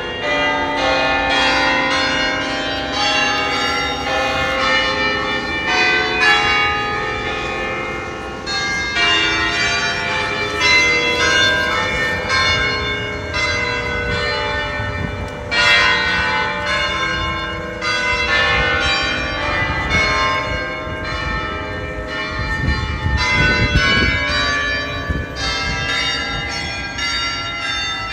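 Church bells pealing from a bell tower: several bells of different pitches struck in quick, irregular succession, their tones overlapping and ringing on.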